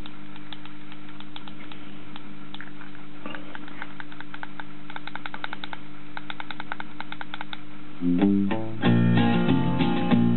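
Music played from a USB stick through the Continental Edison R43 car radio's speaker: a steady held chord with light ticks over it, then guitar music starting about eight seconds in.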